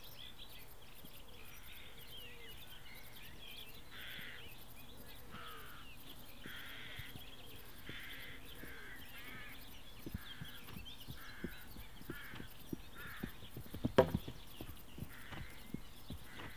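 Horse's hoofbeats on grass while cantering, faint at first and getting louder from about ten seconds in as the horse comes closer, with one sharp loud thud about fourteen seconds in. Birds chirp throughout.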